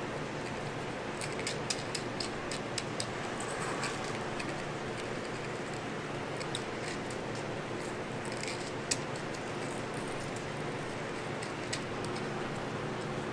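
Scattered light clicks and rattles of crumb topping being scooped from a plastic tub with a small plastic scoop and sprinkled onto a whipped-cream waffle, over a steady background hum.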